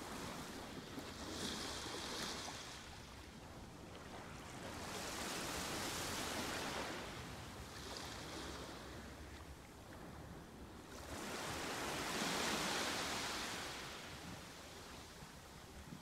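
Ocean waves surging in slow swells, about four of them, each rising and falling over a few seconds.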